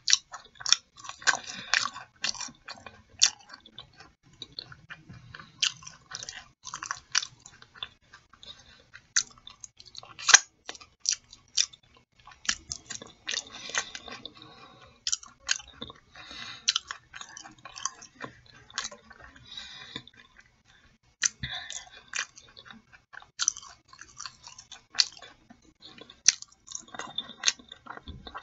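Close-miked chewing of sauced fried chicken and fries, with frequent sharp mouth clicks and smacks at an irregular pace.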